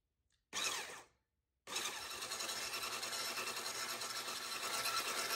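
Electric hand blender with a whisk attachment beating eggs and sugar in a stainless steel bowl. It gives a short burst about half a second in, stops, then runs steadily from just under two seconds in.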